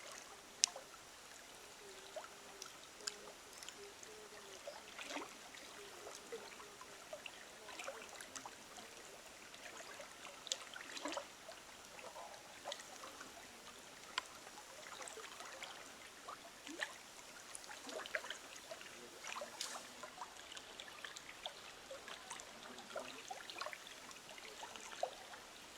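Water trickling steadily, with many faint scattered clicks and ticks, the sharpest one less than a second in.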